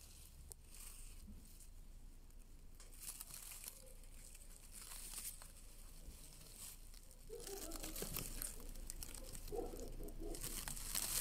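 Faint rustling and crinkling of leaves and fern fronds at close range. From about seven seconds in, soft short muffled sounds come in clusters and grow a little louder.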